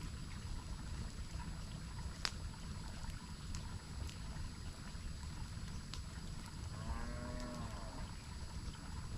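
Steady rush of a waterfall with a few sharp pops from a campfire. A short, low, pitched animal call about seven seconds in.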